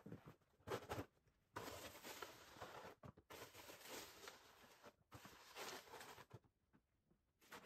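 Snow shovel pushing and scraping snow along a driveway, heard faintly as several strokes about a second long each, with short pauses between them.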